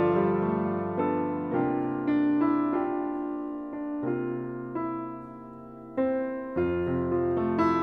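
Gentle piano music: slow melody over sustained chords, dropping softer about five seconds in before a fuller chord comes in.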